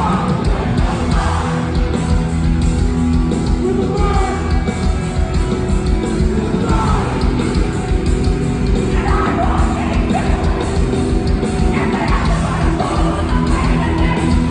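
Hardcore punk band playing live: distorted guitars, bass and drums at full volume, with shouted vocals coming in bursts.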